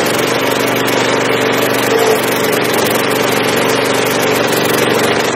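Stump grinder's single-cylinder petrol engine running steadily under load while its 14-inch cutting wheel grinds into a tree stump.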